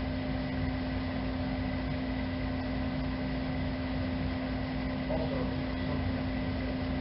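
Steady hum of a small motor with a constant low drone.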